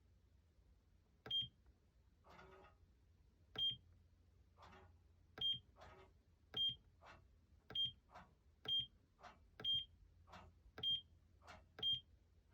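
Life Fitness X3 elliptical cross-trainer making a strange noise in operation: a sharp click with a brief high-pitched ring, nine times, repeating about once a second and a little faster near the end, with softer rasping sounds in between.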